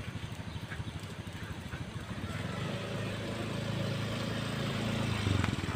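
A small engine running with a rapid, even low pulse; a steadier low hum joins about two seconds in and grows slightly louder.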